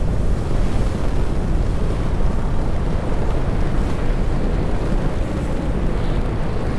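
A layered sound-design bed of deep, steady earth rumble mixed with wind and surf-like noise, in the manner of an earthquake-and-ocean soundscape.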